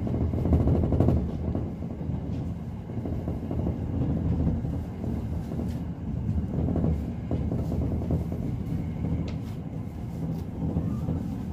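Electric train running on the rails, heard from inside the front car: a steady rumble of wheels on track with occasional clicks.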